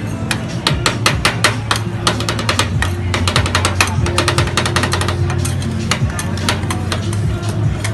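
Two metal spatulas rapidly chopping and tapping on the steel freeze plate of a rolled ice cream pan, mixing mango into the freezing cream: a fast clatter of many taps a second that thins out about halfway through.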